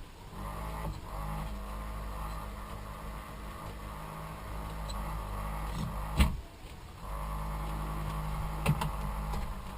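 Small electric soldering fume fan running with a steady humming buzz, a noise it should not make and whose cause the owner does not know. About six seconds in there is a click and the hum drops away, then it starts again about a second later and runs on.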